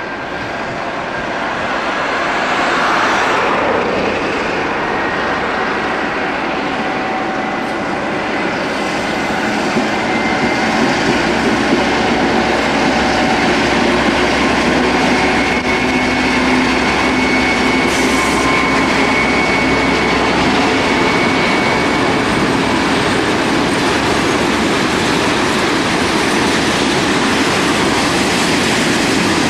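Two Ludmilla-type (class 232) diesel locomotives running under load as they approach and pass, growing louder over the first few seconds. A train of tank wagons then rolls by, with the steady rumble of wheels on the track and a thin high wheel squeal in the middle.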